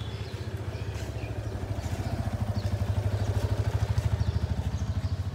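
A vehicle engine running close by with a steady, fast, low putter. It grows a little louder around the middle and eases slightly near the end.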